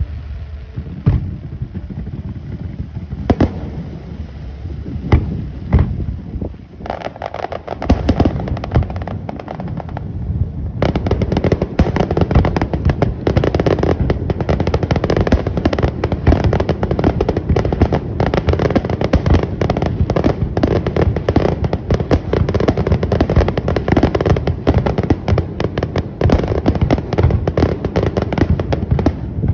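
Aerial fireworks bursting: a few separate bangs at first, then from about eleven seconds in a dense, rapid barrage of crackling reports that does not let up.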